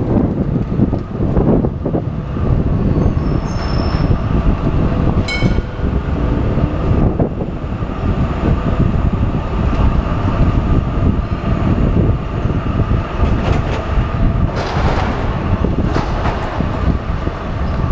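Wind buffeting the microphone of a camera on a moving bicycle, over the running noise of city traffic and trams. A few brief high squeals come about three to five seconds in.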